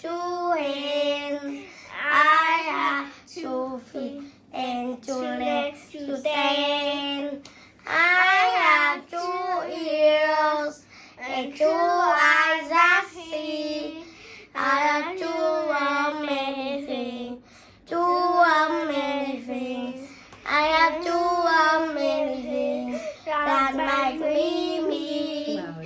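A child singing a simple English children's song, in short phrases with held notes and brief pauses between them, without instrumental backing.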